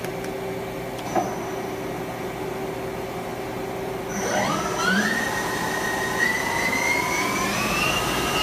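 Yang CK-2A CNC lathe's spindle and 8-inch chuck spinning up toward its 3,800 RPM top speed: a whine starts about four seconds in, climbs steeply and then keeps rising slowly. The spindle bearings sound healthy. Before the spin-up there is only the machine's steady hum, with one short click about a second in.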